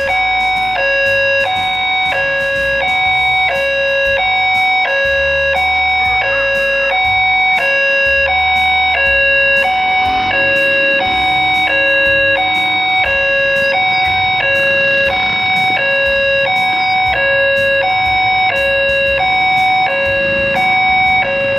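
Railway level-crossing warning alarm sounding: an electronic two-tone ding-dong repeating about once a second without a break, signalling that a train is approaching.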